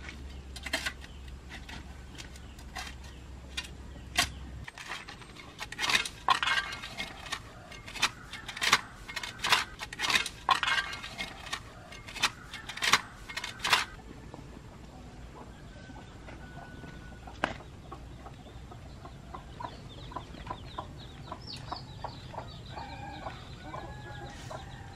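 Chickens clucking, with a fast run of sharp knocks and clatter in the first half that is the loudest sound; short clucking calls come through again near the end.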